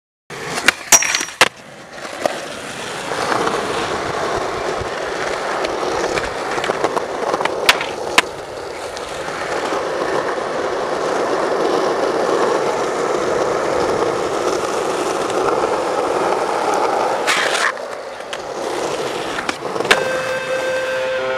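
Skateboard on asphalt: a few sharp clacks of the board popping and landing about a second in, then the steady rumble of its wheels rolling, broken by a couple of clicks around eight seconds and another sharp hit near seventeen seconds. Music comes in near the end.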